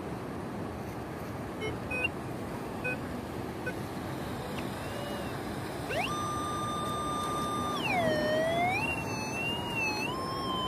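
Metal detector sounding a target tone from about six seconds in: held steady at first, then dipping lower and wavering before rising again, the sign of a metal target under the coil. A steady background wash runs under it throughout.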